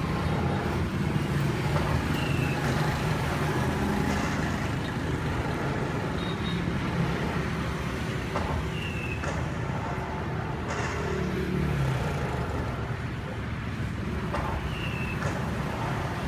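Steady rumble of road traffic, with a few faint short chirps and light clicks over it.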